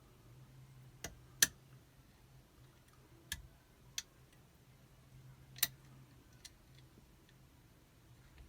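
Sharp metallic clicks of lock-picking tools working a 5-lever mortise lock, about six scattered clicks with the loudest about one and a half seconds in.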